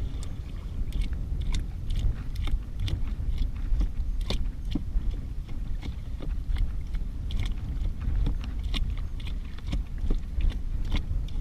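A stick stirring a thick, wet chum slop of thawed chum, oats, sand and pilchards: irregular squelching and sloppy clicking, several a second, over a steady low rumble.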